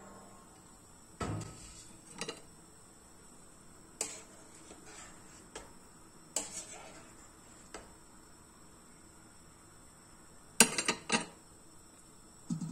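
Scattered clinks and knocks of utensils and a lid against a stainless steel cooking pot, a few seconds apart, with a louder clatter of several knocks about eleven seconds in.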